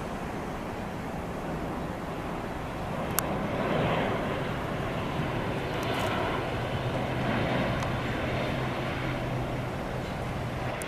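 Boeing 737 twin-jet airliner on final approach, its engines running at landing power: a steady rushing jet noise that swells about four seconds in, with a low steady hum beneath. A short sharp click about three seconds in.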